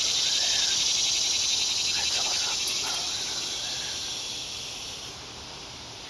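Cicadas singing in a loud chorus of high, finely pulsing buzzing that dies away about five seconds in.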